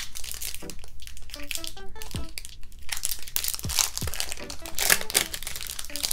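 Foil booster-pack wrapper crinkling and rustling in the hands as a pack of Pokémon cards is opened, in quick irregular crackles.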